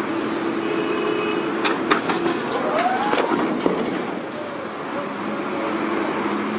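Vehicle engines and road traffic running steadily, with several sharp clicks or knocks between about two and four seconds in.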